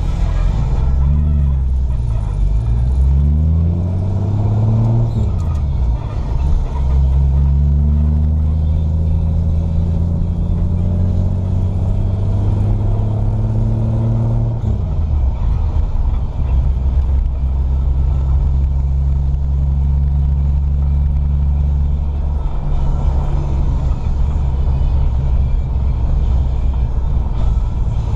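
A vehicle's engine heard from inside the cab while driving. It revs up and drops back a few times while pulling away, climbs slowly under acceleration, and eases off about halfway through to run at a steady cruising speed.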